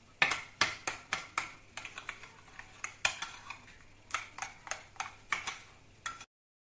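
Metal spoon knocking and clinking against a ceramic bowl while stirring a thick yogurt sauce, about three sharp knocks a second, cutting off abruptly near the end.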